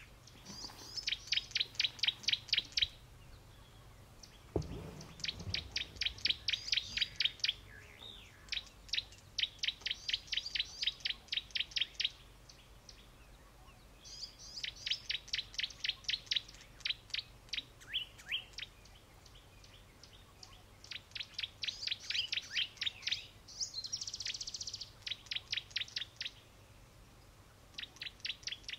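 A bird calling in repeated bursts of rapid, evenly spaced high chirps, each burst lasting a few seconds with short pauses between. A dull low thump comes about four and a half seconds in.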